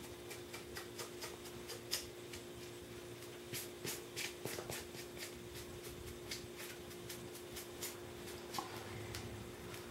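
A cloth rag wiping wet paint off a painted EVA foam piece: a run of faint, irregular rubbing scuffs as the excess is rubbed away to weather the foam.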